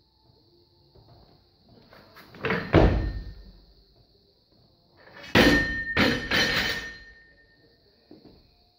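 A 72 kg barbell snatched from the floor: a heavy thud and plate clatter about two and a half seconds in as the bar is pulled and caught overhead. About two seconds later the bar is dropped and crashes onto the floor, bouncing once more with the plates clanging and a ringing tone dying away.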